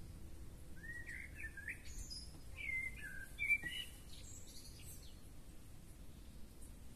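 A songbird singing a short burst of varied whistled and warbled notes for a few seconds, over a low steady outdoor background noise.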